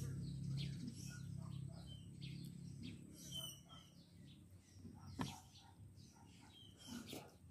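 Birds chirping in the background, with short high chirps about three seconds in. A low hum fades out over the first couple of seconds, and there is a single sharp click about five seconds in.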